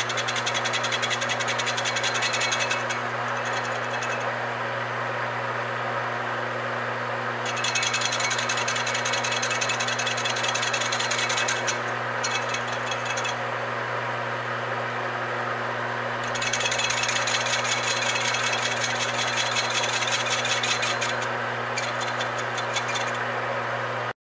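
Metal lathe running with a steady motor hum while the tool takes a facing cut on a cast flywheel; the cut comes and goes in stretches of a few seconds of rapid, rattling noise.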